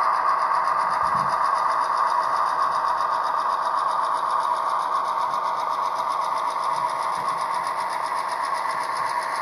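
Model diesel locomotive hauling grain hopper wagons along the track, a steady whirring hum of the running train.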